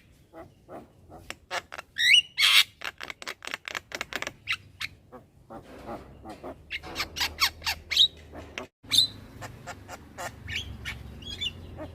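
Young Javan myna chattering without pause: rapid runs of short, dry clicking notes mixed with short rising whistles and a loud, harsh squawk about two and a half seconds in.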